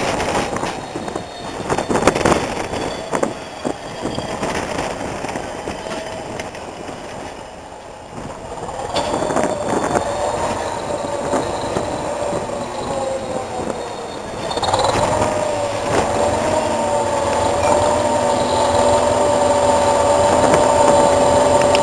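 Hastings diesel-electric multiple unit 1001 running past at low speed, its coach wheels knocking irregularly over the rail joints. About two-thirds of the way through a steady, slightly wavering high whine sets in and holds.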